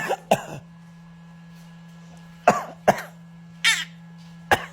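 A baby giving short, deliberate fake coughs, about five of them spaced apart, copying the grown-ups' coughing.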